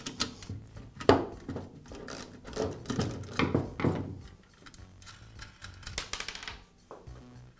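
Clicks and knocks of hand tools and a sheet-metal vent-fan-heater housing being handled on a wooden workbench: a screwdriver and nut driver set down, then the metal housing moved and turned. The sharpest knock comes about a second in, with a run of clicks a little later and a few more near the end.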